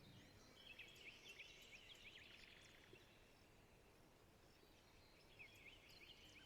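Faint birdsong from a forest background: a quick run of high chirps from about half a second in to about two seconds, then another run starting near the end.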